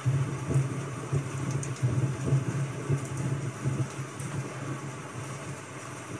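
A low rumble starts suddenly, wavers in loudness and fades away after about five seconds, over a steady hiss with faint crackles.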